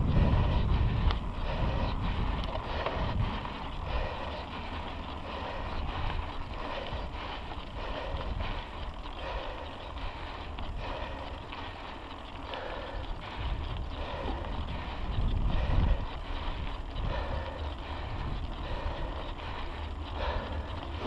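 Wind buffeting the microphone while an Orbea mountain bike is ridden over cracked pavement, with tyre noise and small rattles from the bike. The wind rumble is strongest at the start and again about 15 seconds in.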